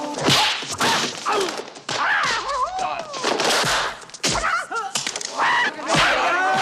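Martial-arts film fight soundtrack: a fast series of punch and kick impacts and whooshes, mixed with short shrill yells and cries from the fighters.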